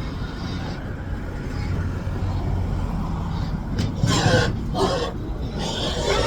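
Low steady rumble of an idling livestock lorry carrying pigs, with loud high squeals from the pigs breaking in from about four seconds in.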